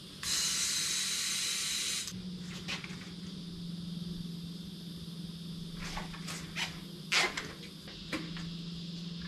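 A loud rush of air hissing for about two seconds as a tubeless mountain bike tyre is pumped up to pressure, then a faint steady hum with a few sharp clicks.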